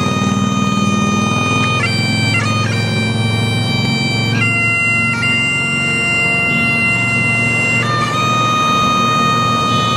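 Bagpipes playing a slow tune: long held melody notes over steady drones, with quick grace-note flicks at each change of note.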